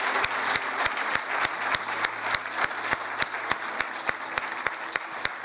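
Large hall audience applauding, clapping together in a steady rhythm of about three claps a second, easing slightly toward the end.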